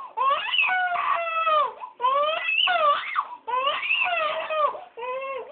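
Baby crying hard in about four long wails with short gasps between. She is in pain while her left foot is turned and held straight as the cast sets.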